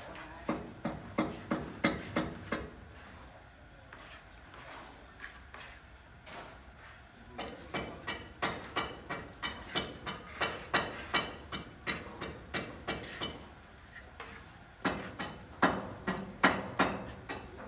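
Hammer blows in three runs of quick, even strikes, about three a second, with short pauses between the runs.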